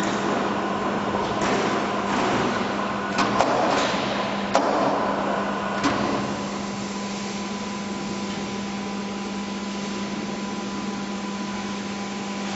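Steady electric machinery hum, with clattering and four or five sharp knocks over the first six seconds, then only the even hum.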